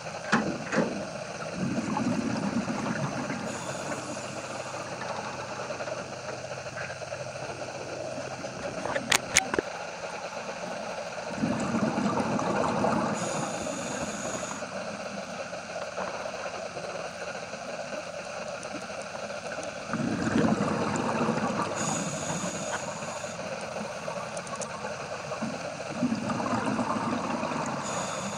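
Underwater recording of a scuba diver's regulator breathing: a bubbling exhale about every eight or nine seconds, each followed by a short hiss, over a steady muffled hum. Two sharp clicks about nine seconds in.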